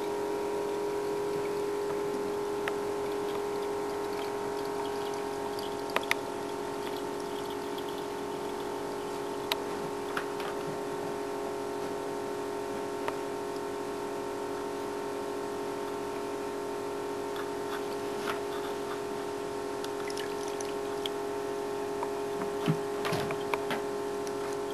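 A steady mechanical hum or whine held on one pitch, with scattered light clicks and taps, several of them close together near the end.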